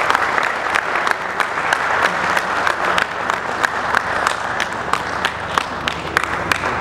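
An audience applauding steadily, a dense wash of many hands clapping, with sharp individual claps standing out close by.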